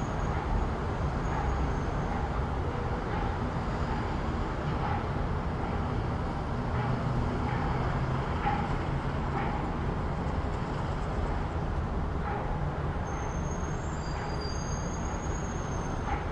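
City street ambience: a steady low rumble of passing road traffic, with scattered faint knocks and a thin high squeal for a couple of seconds near the end.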